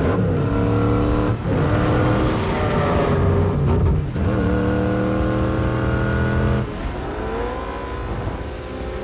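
The Batmobile's engine is running hard at high revs in a high-speed chase. Its note dips briefly twice, about a second and a half in and again about four seconds in. Near seven seconds it drops and climbs again, somewhat quieter.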